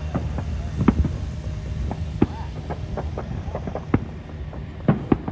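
Fireworks going off in an irregular string of bangs and pops over a low rumble, with a few louder booms standing out about a second, two seconds, four seconds and five seconds in.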